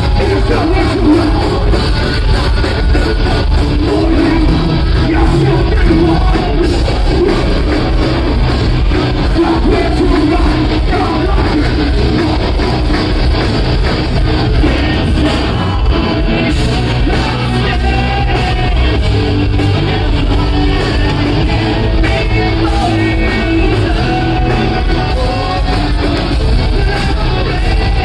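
Live rock band playing loudly with a singer, heard from among the crowd in a large club room.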